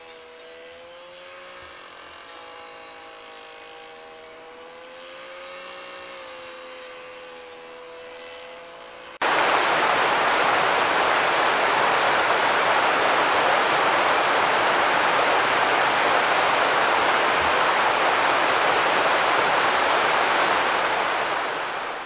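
Loud, steady rushing of river water through rapids, cutting in suddenly about nine seconds in. Before it, a fainter steady droning hum that wavers slightly in pitch.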